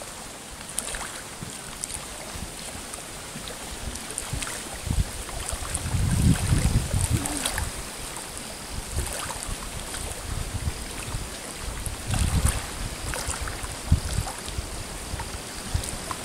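Wind gusting on the microphone, strongest about six seconds in and again about twelve seconds in, over small waves lapping at a lake shore.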